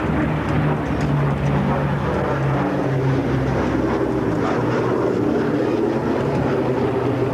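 Boeing B-17G Flying Fortress flying a low pass, its four Wright Cyclone radial engines droning steadily. The engine note drops a little in pitch over the first couple of seconds as the bomber goes by.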